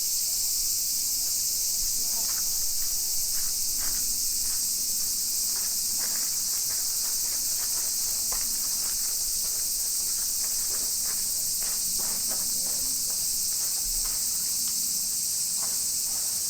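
A dense, steady, high-pitched chorus of insects buzzing and trilling without pause, with scattered faint clicks beneath it.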